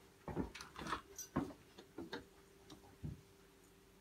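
Light, irregular clicks and knocks of a fondue burner, matches and tableware being handled on a table, about eight in all, over a faint steady hum.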